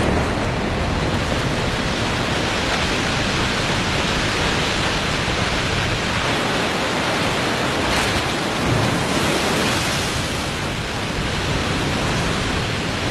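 Waterfall in spring ice breakup: meltwater carrying mud and broken ice pouring over the drop, a steady heavy rush.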